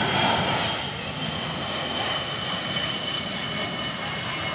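Boeing 747 on final approach passing low overhead, its four turbofan engines giving a steady rush of jet noise with a high whine that slowly falls in pitch as the airliner moves away. Loudest near the start, easing slightly after.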